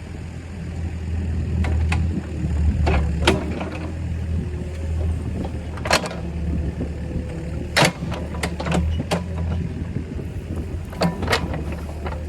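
Engine of a work machine running steadily with a low hum, with a handful of sharp clanks or knocks scattered through it.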